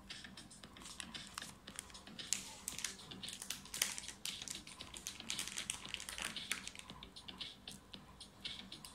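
Irregular light clicks and crinkly rustling as a pen presentation box and its paper and fabric packing are handled.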